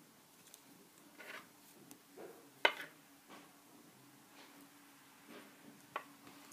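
Handling noise: a plush toy being turned over in the hands right at the microphone, with soft scattered rustles, a sharp tap about two and a half seconds in and a smaller one near the end.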